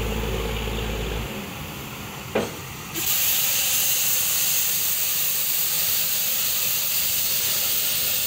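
A burning borewell drilling rig, with gas blowing out around its well head, making a steady hiss. A low engine hum stops about a second in, a single sharp knock comes just after two seconds, and at about three seconds the hiss jumps louder and harsher, then holds steady.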